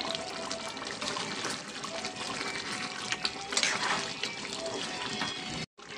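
Watery chicken and drumstick curry bubbling in a pan as it is stirred with a metal slotted spatula, the liquid sloshing with an occasional light scrape.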